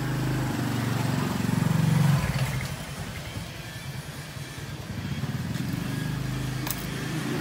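A vehicle engine running, getting louder over the first two seconds and then dropping off sharply, then building up again in the second half.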